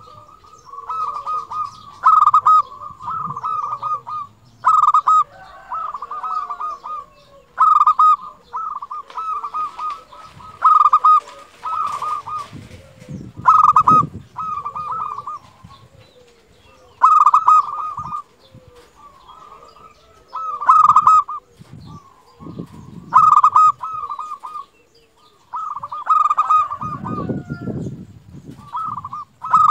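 Zebra dove (perkutut) singing its cooing song: each phrase starts with a loud note followed by a quick run of rolling coos, repeated every two or three seconds.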